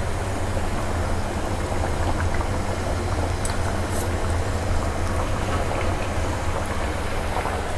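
Pork panang curry boiling hard in its pot over a burner turned up to full heat: a steady bubbling hiss with a low hum underneath.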